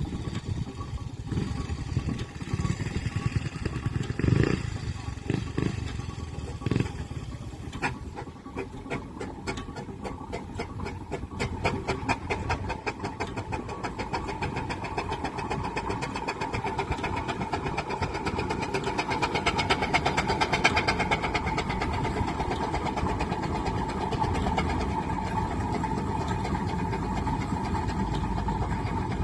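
Fowler steam ploughing engine working, with a low rumble and a few heavy knocks in the first eight seconds, then a rapid, even run of exhaust beats with a steady ringing tone above it.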